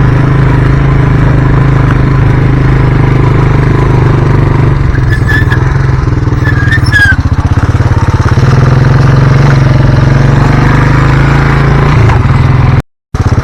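Small off-road vehicle engine running steadily at a constant pace, with a few short high chirps about five to seven seconds in. The sound cuts out abruptly just before the end.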